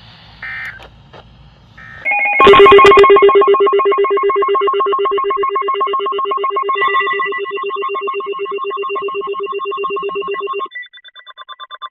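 Two short buzzing digital data bursts, then a loud electronic alert tone made of several steady pitches with a fast warble, ringing like a telephone for about eight seconds. Near the end it cuts to a softer, rapidly pulsing beep.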